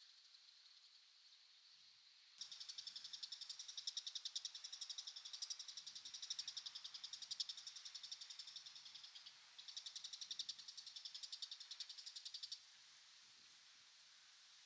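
An insect's rapid buzzing trill, two long runs separated by a brief break, over a faint steady hiss of more distant insects.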